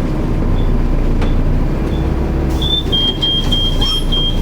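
Volvo B7TL double-decker bus's six-cylinder diesel engine running steadily, heard from inside the bus. From about two and a half seconds in, a high-pitched ticking beep repeats at about four times a second.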